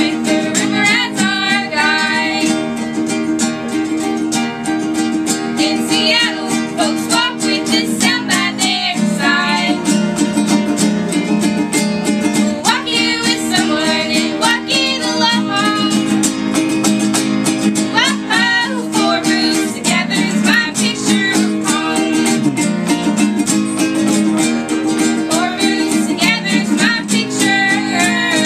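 A song performed live on strummed ukulele and acoustic guitar, with voices singing the melody.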